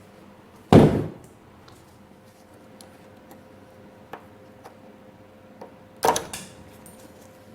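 Two loud knocks about five seconds apart, each with a short ring-out, with light clicks and taps between, as tools and parts are handled during the ATC 90's disassembly.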